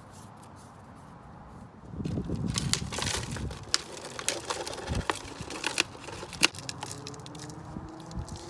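Hands handling thin plastic pots and jug planters and scooping potting soil into a small plastic pot. From about two seconds in there is a rustling with many sharp crinkles and clicks.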